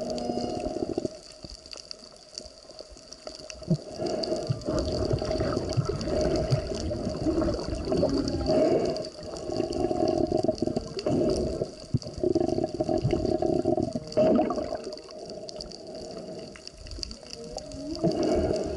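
Water recorded underwater: muffled bubbling and water movement in repeated bursts a second or two long, every few seconds, over a faint steady hum.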